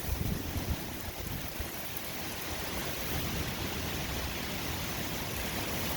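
Steady rain falling, an even hiss without separate drops or other events.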